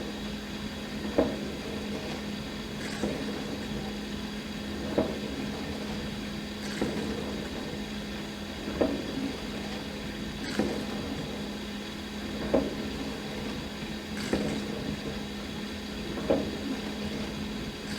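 Dishwasher running through its wash: a steady pump-motor hum, with a surge of spraying water about every two seconds.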